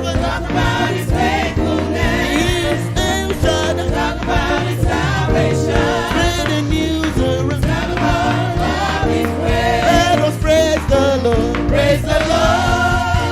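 Live gospel praise music: a church choir singing together over a band with bass and drums keeping a steady beat.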